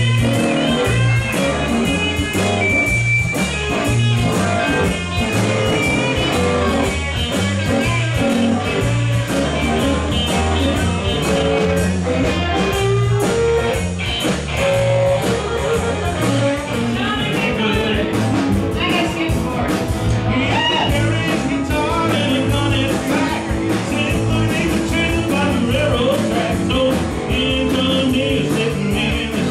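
A live blues-rock band playing: electric guitar lines over bass guitar and drums, with a voice singing.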